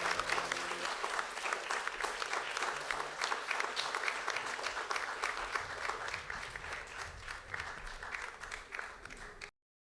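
Audience applauding: dense clapping that gradually thins out and then cuts off abruptly near the end. The last held notes of the background music fade out in the first second.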